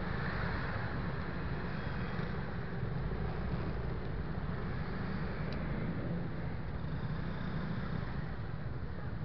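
Steady riding noise aboard a moving scooter in a pack of scooters: a constant low rumble of wind, engine and road noise with no marked changes.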